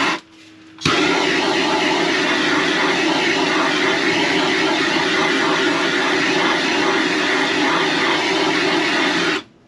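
Handheld gas blowtorch lit with a click about a second in, then its flame running with a steady roar as it heats timber before epoxy gluing, until it is shut off suddenly near the end.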